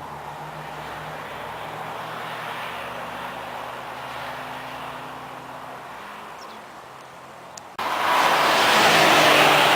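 Porsche sports car engines at a racetrack: a moderate engine hum with steady low tones, then suddenly, about eight seconds in, a much louder rush of a car going by at speed that peaks near the end and starts to fade.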